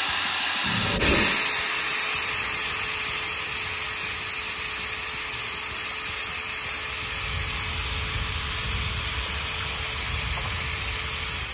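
Corded electric drill running steadily with a paddle mixer, churning a bucket of honey-and-cherry mead must to mix it and work oxygen into it at the start of fermentation.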